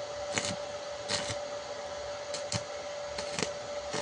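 Stick-welding arc from a small inverter welder (CNULOTC MMA 120): a steady sizzle with a steady whine, broken by irregular sharp crackles and pops.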